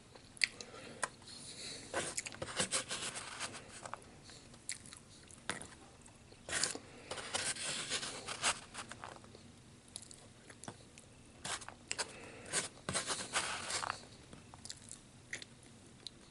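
A person chewing food close to the microphone, with irregular wet smacks and crunchy clicks of eating.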